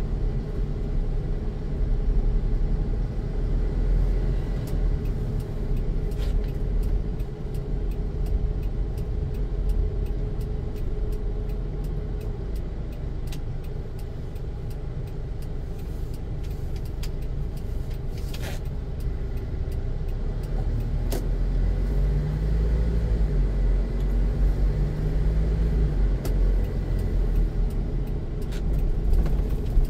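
Car driving, a steady low rumble of road and engine noise. About three-quarters of the way through, a low tone briefly rises and falls.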